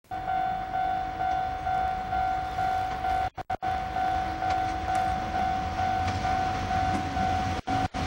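Freight train hauled by an EF65 electric locomotive approaching on a curve: a low rumble under a steady ringing tone that pulses about twice a second. The sound cuts out briefly twice.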